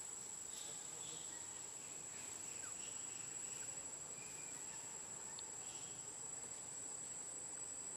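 Faint forest insect drone: a single steady high-pitched note held without a break, with a few faint, brief scattered sounds over a quiet background.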